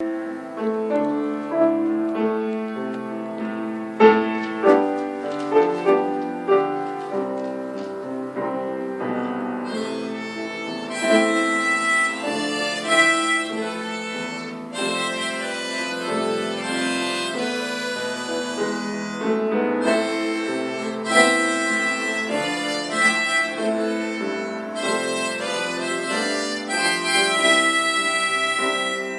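Instrumental music: keyboard accompaniment with struck, piano-like notes and a sustained wind-instrument melody line, growing fuller and brighter about ten seconds in.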